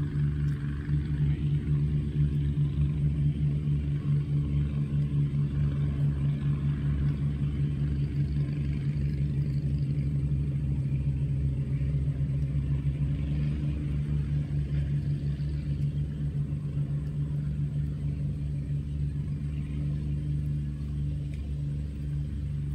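An engine running steadily nearby: a low, even drone with a fast throb.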